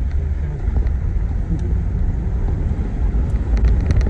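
Steady low rumble of a car's engine and tyres on the road, heard from inside the moving car, with a few faint ticks near the end.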